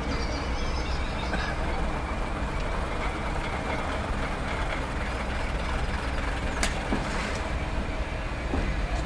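Class 121 'bubble car' diesel railcar running as it moves slowly off, its underfloor diesel engines a steady low rumble. A single sharp click comes about two-thirds of the way through.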